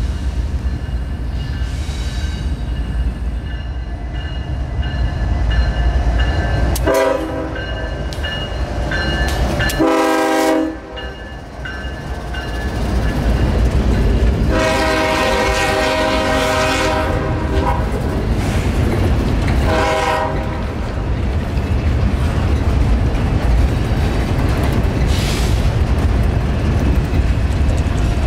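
CSX freight train's diesel locomotives sounding the air horn for a grade crossing in a series of blasts, one long blast in the middle, over the steady rumble of the engines. A crossing bell rings.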